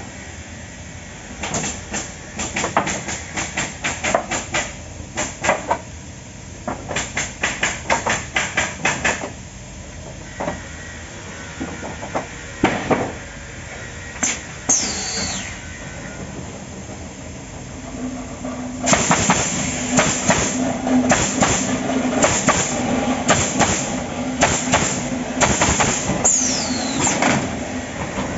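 Automatic stringer pallet nailing machine driving nails in quick runs of sharp bangs, with short pauses between runs. A steady machine hum joins about two-thirds of the way in, and two brief falling squeals sound midway and near the end.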